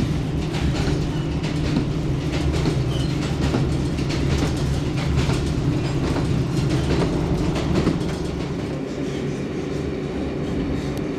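Diesel passenger train running on rails: a steady engine drone with clicking and rattling of the wheels and carriage, easing slightly about eight seconds in.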